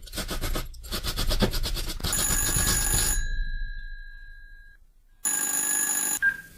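Telephone bell ringing in two rings: a long ring that starts abruptly and fades away by about five seconds in, then a shorter ring of about a second near the end.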